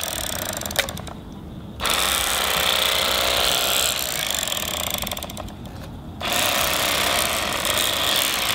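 Bubba electric fillet knife running, its motor buzzing as the reciprocating blades saw through a striped bass fillet. The buzz drops out briefly twice, about a second in and again just past the middle.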